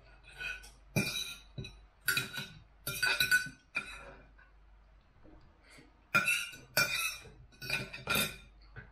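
Knife and fork scraping and clinking against a plate as food is cut, in short runs of strokes, with a quieter gap of a couple of seconds in the middle.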